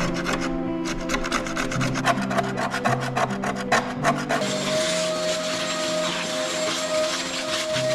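Sanding: rapid back-and-forth abrasive strokes for about four seconds, then a steady sanding hiss with a constant hum.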